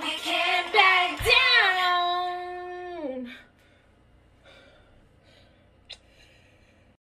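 A female singing voice from a pop song holds a long final note that slides down and ends about three seconds in. Then come faint rustling handling noises and a single sharp click near the end.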